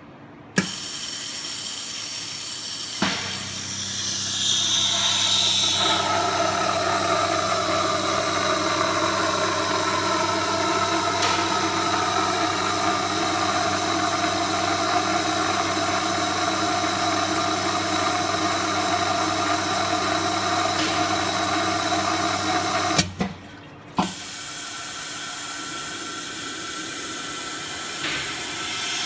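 Techniks shrink-fit machine running a cycle: a click, then a steady rushing hiss over a hum, with a whine that settles in the first few seconds. It cuts out abruptly for about a second near the end and starts again.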